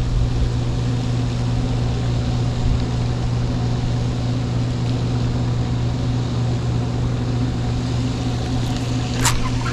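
Steady low mechanical hum with wind rumbling on the microphone, and one short sharp click about nine seconds in.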